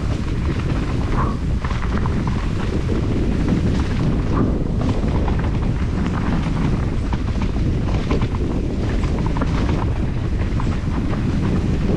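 Mountain bike riding over a rough trail: a steady low rumble of jolting and buffeting on the microphone, with frequent small rattles and clicks from the bike.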